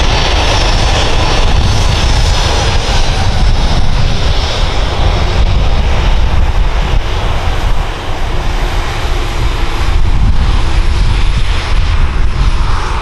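Jet engines of a Boeing 737-800 running steadily as the airliner moves on the ground: a loud, continuous noise with a deep rumble and a faint high whine that slowly falls in pitch.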